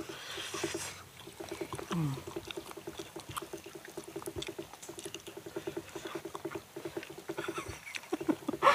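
Small eating sounds as roasted sweet potato and taro are peeled and bitten by hand, over a rapid, even, pulsing call from an animal in the surrounding rice paddy.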